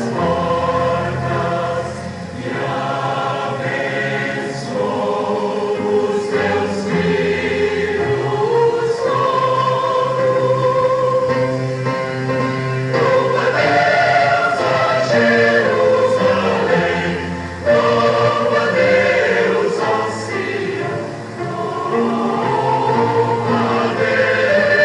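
Church choir singing a hymn, holding sustained notes that move from one to the next.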